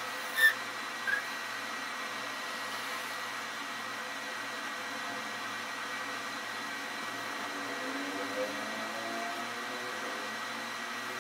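Steady background hiss with a faint high whine. A short sharp knock about half a second in and a smaller one about a second in.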